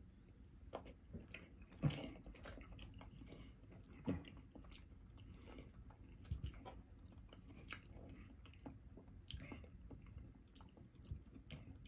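Faint, scattered clicks and taps of long acrylic nails picking at seafood-boil food, mixed with chewing. The sharpest ticks come about two, four and six seconds in.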